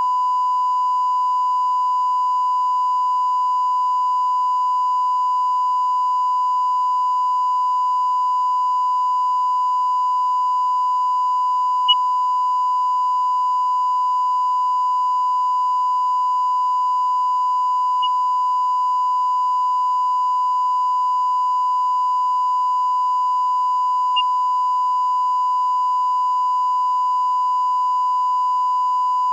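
A steady, unbroken electronic test tone held at one pitch, the kind of reference tone laid on a recording where the programme ends. Faint ticks come about 12, 18 and 24 seconds in.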